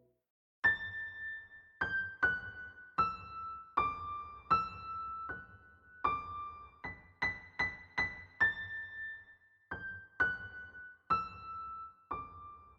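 Background music: a slow melody played one high note at a time on a piano-like keyboard, each note struck and left to fade. It starts about half a second in, after a moment of silence.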